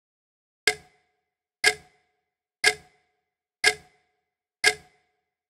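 Clock ticking sound effect: one sharp tick each second, five evenly spaced ticks.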